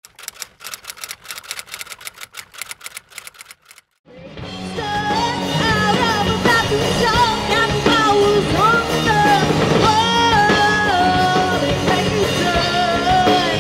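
A quick, even run of sharp percussive clicks for about four seconds, then after a short break a live rock band starts: electric guitars, bass and drums with a woman singing lead.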